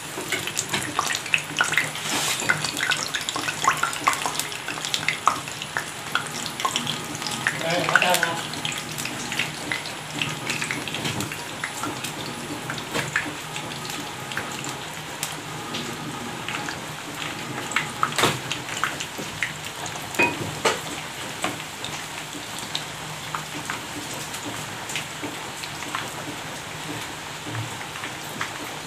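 Rava vadai frying in hot oil in a kadai: a steady crackling sizzle, busiest in the first ten seconds or so after a vada goes into the oil, with scattered sharp pops.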